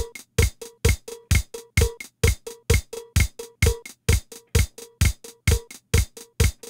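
Roland CR-1000 Digital Drummer, a 1986 digital drum machine, playing its Samba 1 pattern in straight time at 130 BPM. A bass drum hits on every beat, about two a second, with sharp ticks between the beats and a short pitched drum note on most beats.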